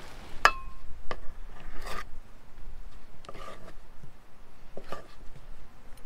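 Metal dough scraper working soft dough in an enamel bowl: a sharp clink with a brief ring as the metal strikes the bowl about half a second in, then several separate scraping strokes.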